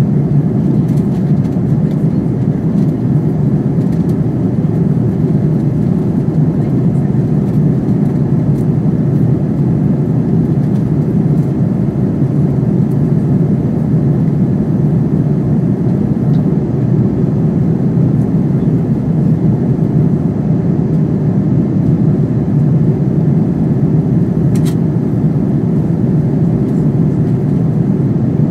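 Steady cabin noise of an Airbus A330-900neo in flight, heard from a window seat: the low, even rush of airflow over the fuselage mixed with the hum of its Rolls-Royce Trent 7000 engines.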